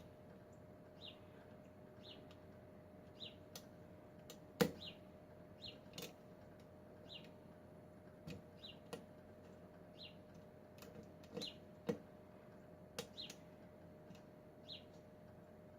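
Sharp metal clicks from lock picks working a Kwikset pin-tumbler lock, the loudest about a third of the way in. Under them runs a short high chirp, repeating about once a second.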